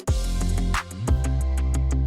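Electronic background music with a steady beat and deep, sustained bass notes.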